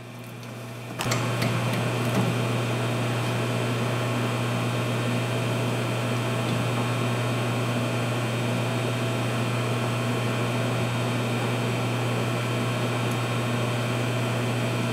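An electric machine motor switches on with a click about a second in and then hums steadily at an even pitch.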